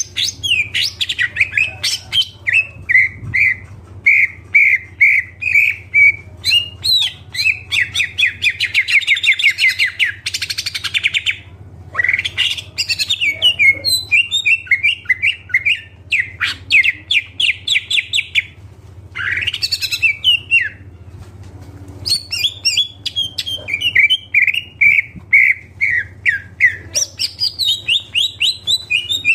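A cucak ijo (green leafbird) singing a full song: fast runs of repeated chirping notes and trills, broken by a few short pauses, over a steady low hum.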